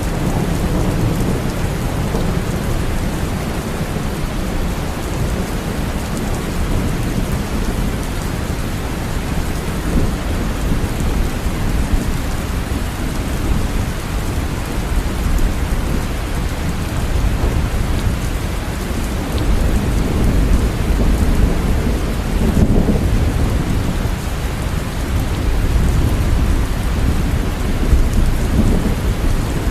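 Steady rain falling, with a low rumble of thunder that swells and fades a few times.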